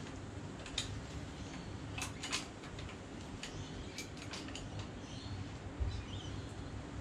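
Ratchet and socket running the rear main cap bolts of a Ford 351 Cleveland down by hand. It gives scattered light metal clicks, about ten spread irregularly, as the bolts are snugged toward seated before torquing. A low steady hum lies underneath.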